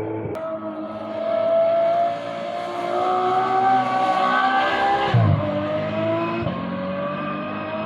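Rally car engine accelerating hard, its pitch climbing for about five seconds, dropping sharply at a gear change, then climbing again.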